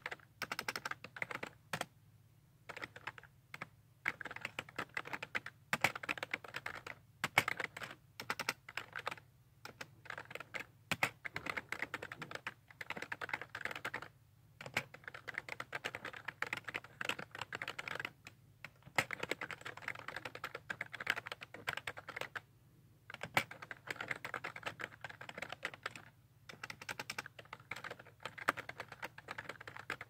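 Typing on a computer keyboard: quick runs of key clicks lasting a few seconds each, broken by brief pauses, with an occasional sharper single keystroke.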